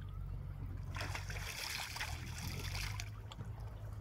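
Water splashing and sloshing for about two seconds, over a steady low rumble.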